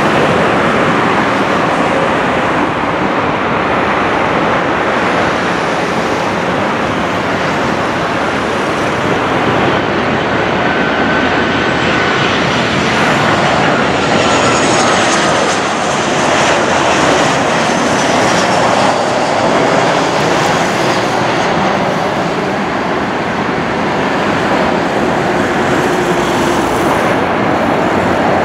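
Boeing 737-700 on final approach to landing, its CFM56 jet engines giving a loud, steady rush. A thin whine falls in pitch about halfway through as the jet passes.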